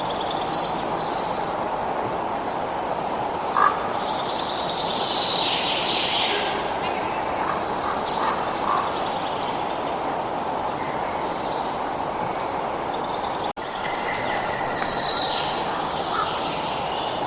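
Wild birds calling and chirping over a steady rushing background noise, with a brief dropout about two-thirds of the way through.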